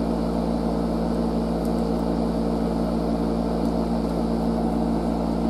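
A cooler running: a steady electric fan-motor hum with a low drone and a few constant tones.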